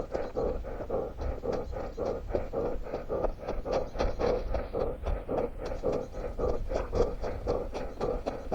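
A runner's footsteps at a steady pace, about three a second.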